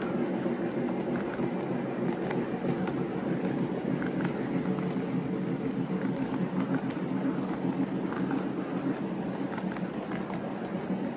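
O gauge model freight cars rolling along three-rail track: a steady rumble of metal wheels on the rails, with scattered light clicks.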